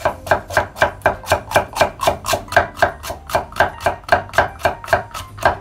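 Kitchen knife slicing a red bell pepper on a wooden cutting board, the blade knocking against the board in a steady rhythm of about four cuts a second.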